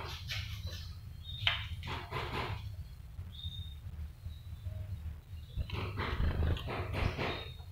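A caged juvenile konin giving harsh, scratchy chattering calls in three rough bursts, with short thin high whistle notes between them.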